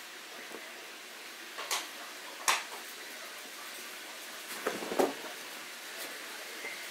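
A few sharp knocks and clatters, four or five in all with a short cluster near the middle, over a steady background hiss.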